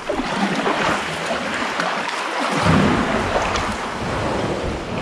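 Water splashing and sloshing as double-bladed kayak paddles dip into calm sea water around an inflatable kayak, a steady wash of water sound that swells a little about halfway through.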